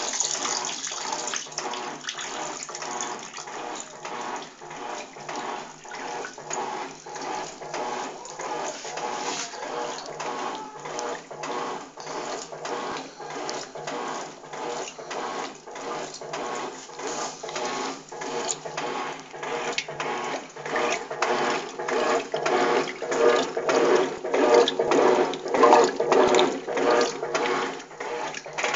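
Electrolux TOP6F top-loading washing machine agitating a load of clothes in water, with a regular rhythm of swishing surges as the agitator turns back and forth; the surges grow somewhat louder near the end.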